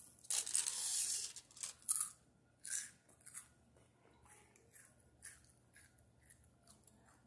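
Crunching and crinkling while a Ferrero Rocher is eaten: the crisp wafer shell bitten and chewed and its gold foil wrapper moved, with one long crackly burst about half a second in and a few shorter ones after.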